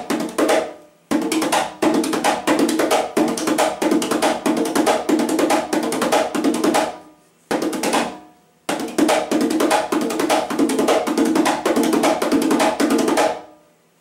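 Conga played with bare hands: a fast repeating pattern of finger taps, muted closed strokes, heel-tip rocking strokes and slaps, looped in three runs with brief breaks about half a second in and around seven seconds in, stopping just before the end.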